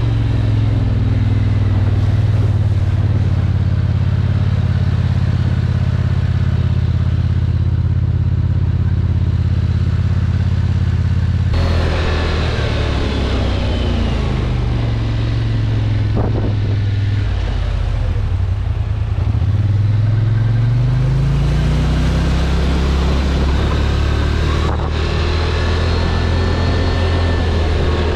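ATV engine running under way, steady for the first dozen seconds. After that the revs drop and climb again a few times as the throttle changes.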